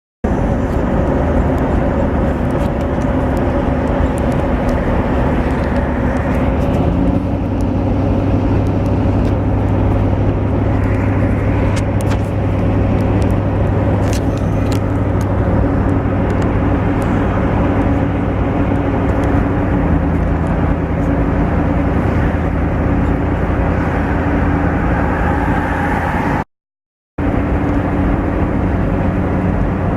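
Steady car engine and road noise in a moving car. The engine tone shifts pitch twice, about a quarter of the way in and again about two-thirds in, and the sound cuts out completely for a moment near the end.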